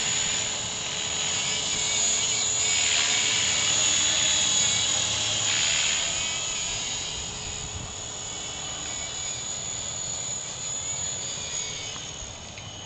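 Walkera V400D02 electric RC helicopter in flight: a steady high motor whine over rotor noise, growing fainter in the second half as it flies farther off.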